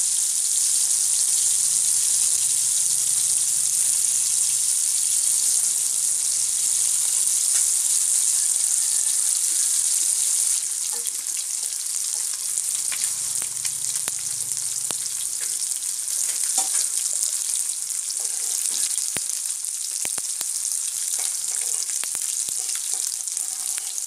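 Masala-coated parrot fish pieces shallow-frying in hot oil in a pan: a steady sizzle that gets a little quieter about ten seconds in, with scattered small pops of spitting oil.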